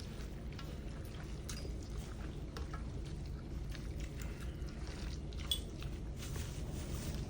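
People eating curry noodle soup: small wet slurps, squishing and light utensil clicks, with one sharper click about five and a half seconds in, over a steady low hum.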